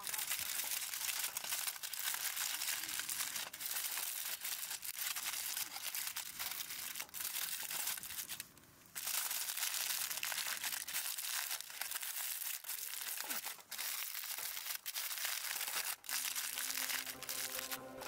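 Aluminium foil crinkling as hands fold and crimp it closed into a packet, with a short pause about halfway through.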